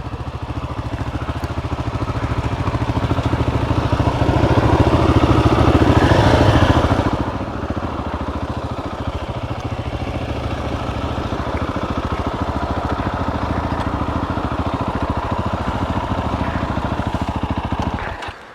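GasGas ES700 single-cylinder dual-sport motorcycle engine running under way, heard from the bike. It pulls harder and louder for a few seconds about four seconds in, then settles to a steady cruise before cutting off near the end.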